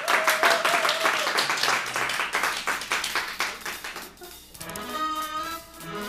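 A dense patter of clicks for about four seconds, then instrumental music comes in.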